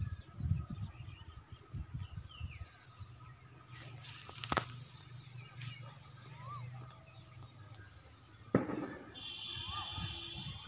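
Outdoor ambience: a few short bird chirps over a low, uneven rumble, with a sharp click about four and a half seconds in and a sudden thump about eight and a half seconds in.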